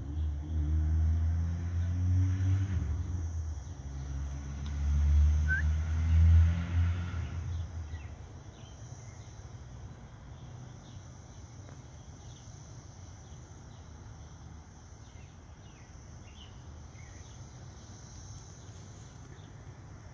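A loud low rumble swells twice and dies away about eight seconds in. A steady high insect drone runs on under it and then continues alone.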